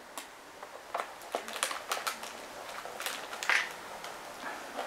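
A stiff paper plate crackling and crinkling as holes are poked through it near the rim and it is handled, with scattered small clicks and rustles.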